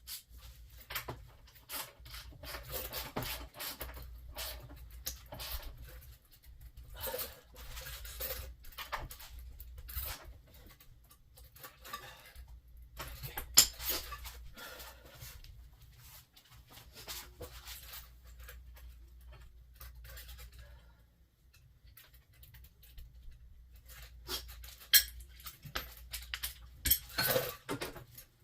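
Hand tools clinking and clattering on metal suspension parts as the car's front hubs and suspension are tightened down: scattered metallic clicks and knocks, with a sharp knock about 13 seconds in and another near 25 seconds.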